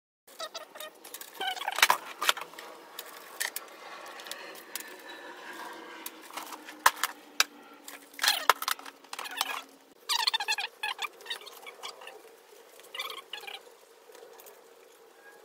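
Small metal desk hardware (bolts and washers) clicking and rattling as it is handled, with plastic bag crinkle. The clatter comes in bursts, about 2 seconds in, again around 8 to 9 seconds, and at 10 to 11 seconds.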